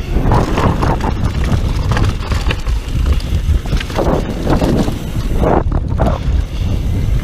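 Wind buffeting the camera microphone over the rolling and rattling of a Specialized Demo downhill mountain bike's tyres on a dirt trail at speed, with scattered clattering knocks from the bumps.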